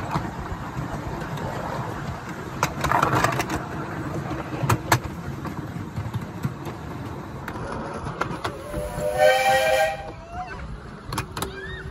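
Miniature steam locomotive's whistle sounding once for about a second and a half, a chord of several notes, over the steady rumble and clatter of the passenger coaches running on the rails.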